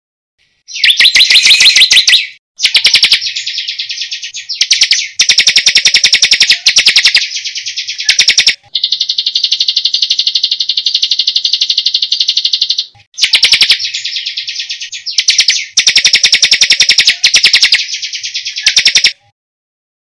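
Songbird song made of very fast, rolling high trills in phrases of one to two seconds with short breaks, including one long even trill of about four seconds in the middle.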